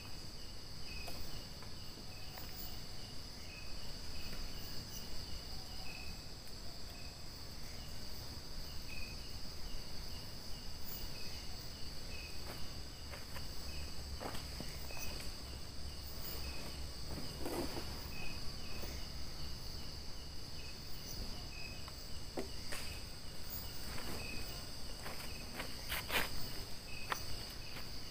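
Night insect chorus: a steady high buzzing of insects, with a short chirp repeating every second or so and a few scattered clicks and rustles.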